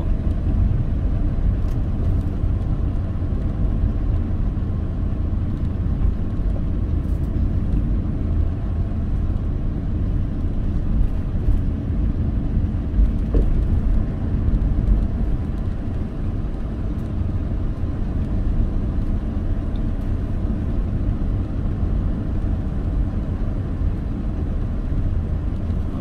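Car driving steadily along a paved road: a constant low rumble of engine and tyre noise.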